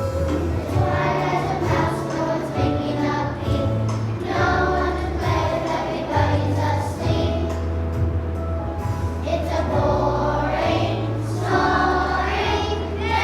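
Children's choir singing a song over instrumental accompaniment, with a bass line stepping between sustained notes.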